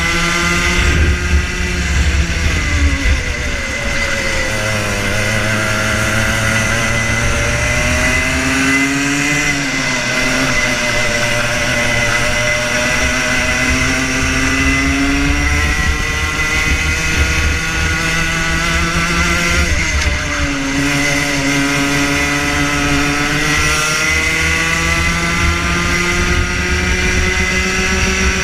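Rotax Junior Max 125cc two-stroke kart engine at racing revs, heard from on board the kart. Its pitch falls off several times, about four, nine and twenty seconds in, as the driver lifts for corners, and climbs again each time on the power.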